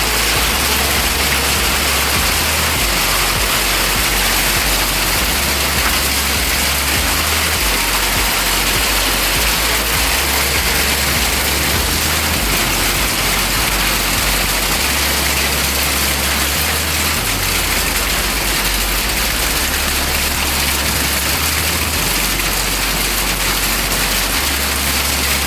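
Hailstorm: hail and rain pelting down in a loud, steady hiss with no letup.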